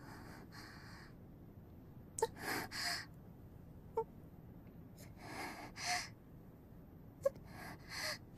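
A girl's shaky, gasping breaths, voice-acted: four pairs of short breaths spaced two to three seconds apart, with a few faint clicks between them.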